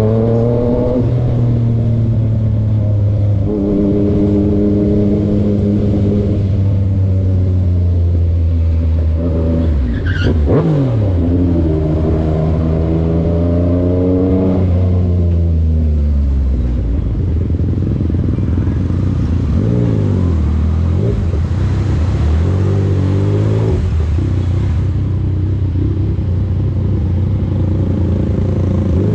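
Yamaha MT-09 inline-three engine running under changing throttle, its pitch holding, climbing and dropping, with a quick falling sweep about ten seconds in; from about seventeen seconds on it settles to a lower, steadier note.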